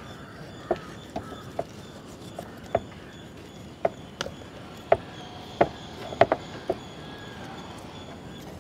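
Knife blade tapping and chopping against a wooden cutting board while raw chicken is cut off the bone: about a dozen short, sharp knocks at an irregular pace.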